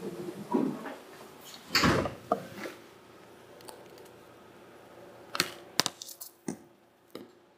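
Irregular sharp knocks and clicks over a faint steady hum, the loudest about two seconds in, thinning out in the last few seconds.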